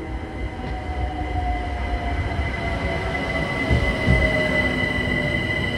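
Passenger train coming closer and growing louder, with a rumble underneath. A steady high whine runs over it, and a lower tone slowly falls in pitch.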